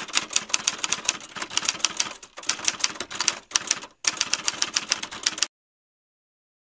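Typewriter keys clacking in a fast, uneven run of keystrokes, a sound effect for on-screen text being typed letter by letter. It pauses briefly about four seconds in and cuts off suddenly a little after five seconds, leaving dead silence.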